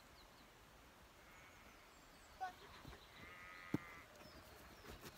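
Faint animal calls: a short one, then a longer drawn-out one a little past the middle, with a single sharp click just after it.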